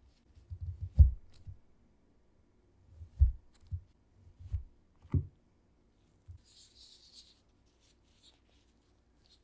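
Soft low thumps from hands and kitchen tools handling food, with a sharper tap about five seconds in, then a brief soft rustle.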